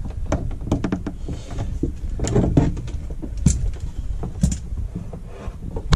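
Pliers clicking and knocking against a plastic tap connector and pipe fittings as the screw-on joint is nipped tighter, over low handling rumble. The sharpest clicks come about three and a half and four and a half seconds in.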